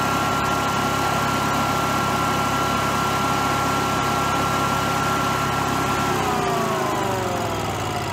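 Generac-built Honeywell standby generator's air-cooled engine running steadily. About six seconds in its speed drops, its pitch sliding down and the sound growing quieter, as the throttle swings back and forth. The technician suspects the controller might be a little wacko.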